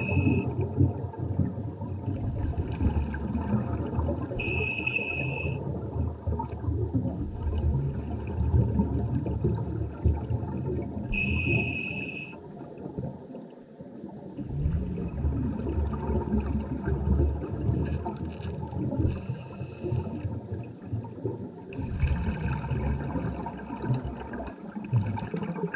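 Scuba regulator breathing heard underwater: short hissing inhalations, each with a steady whistle-like tone, come every several seconds between long stretches of bubbling exhalation, with one brief pause in the bubbles about halfway through.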